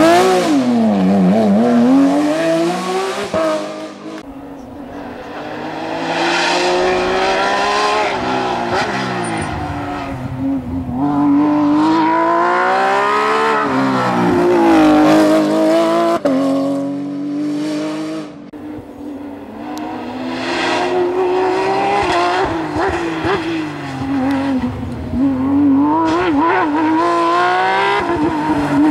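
Porsche 911 GT3 rally car's flat-six engine at full rally pace, the revs climbing and dropping again and again through gear changes and braking. Several separate runs follow one another with abrupt cuts between them.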